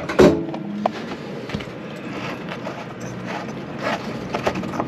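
Light handling noise, faint clicks and rubbing, as a plastic anti-siphon valve on a boat's engine exhaust line is worked loose by hand, over a steady low rumble.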